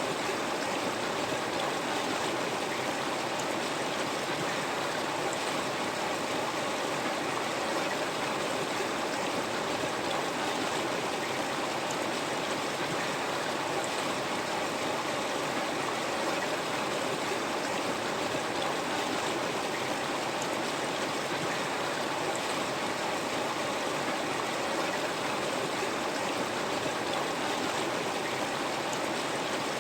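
River water flowing steadily over rocks: a continuous, even rushing with no breaks.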